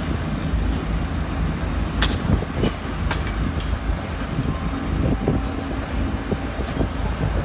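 Steady low hum of ship's deck machinery running on a cargo ship being loaded, with a few sharp metallic knocks, the clearest about two and three seconds in.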